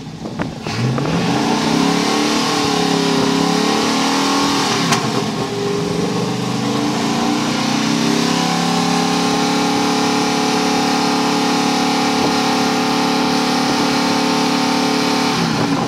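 TVR V8 roadster engine running with its revs rising and falling over the first few seconds, then held at a steady raised speed, dropping back near the end.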